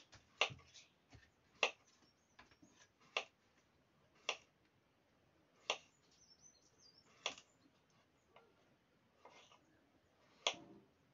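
Knife blade tapping down through peeled boiled eggs onto a small wooden chopping board. About seven sharp knocks come a second or so apart, with a longer pause before the last one.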